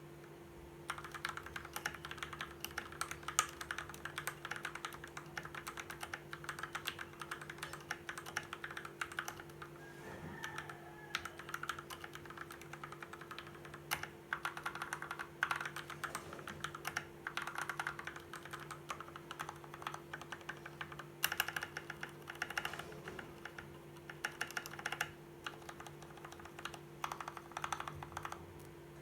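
Fantech MAXFIT61 mechanical keyboard with lubed Gateron G Yellow linear switches being typed on at speed, a dense run of keystrokes starting about a second in. A steady low hum runs underneath.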